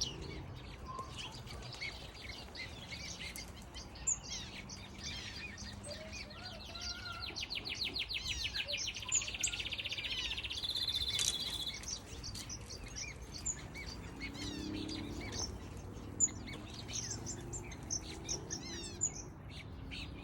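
A mixed flock of aviary finches and softbills chirping and calling over one another, many short overlapping calls. About seven seconds in, one bird gives a fast, evenly repeated trill that lasts some five seconds and is the loudest part.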